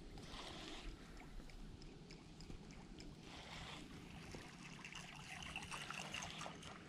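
Faint trickle and lap of water around a canoe, with light ticks and rustles of fishing tackle being handled, which grow busier in the last couple of seconds.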